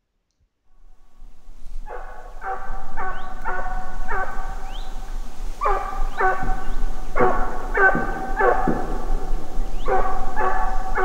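A dog barking in a long, steady series, about two barks a second with short pauses. The barking fades in over the first two seconds.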